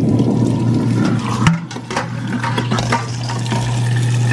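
Kitchen faucet running hot water into a stainless steel sink, with a steady low hum under the splashing. A sharp click comes about a second and a half in.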